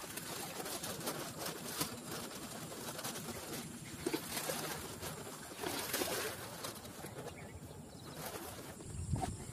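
Lumps of wheat-flour dough ground bait thrown by hand into a pond, splashing onto the water a few times, with birds calling in the background.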